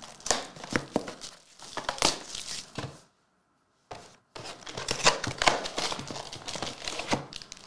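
Foil trading-card packs crackling and crinkling as they are handled and picked from a pile, with a pause of about a second roughly three seconds in.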